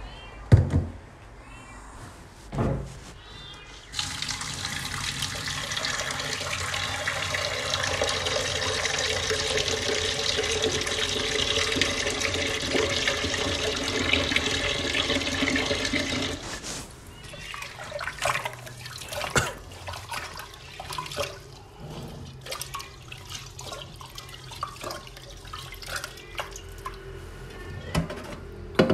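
A couple of knocks near the start, then a kitchen tap running into a pot of rice in a stainless-steel sink for about twelve seconds, stopping suddenly. After that, rice being swished by hand in the water, with scattered small knocks against the pot.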